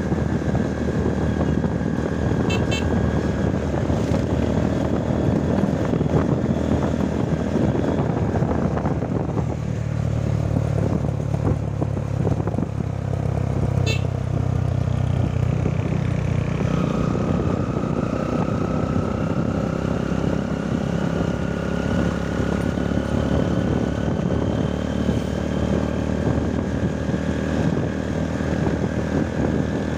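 Motorcycle engine running under way with steady road noise; its thin whine fades out about a third of the way through, then comes back in the second half and rises slowly in pitch as the bike picks up speed.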